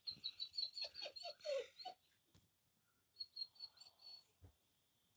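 Faint, quick high chirping, like a small bird: a run of about eight chirps with lower squeaky notes in the first two seconds, then about five more chirps a little past three seconds in.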